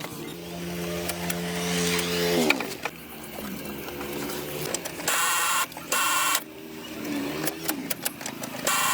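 A small electric motor runs with a steady hum, then winds down about two and a half seconds in. It gives two short, harsher bursts later on and one more brief spin up and down near the end.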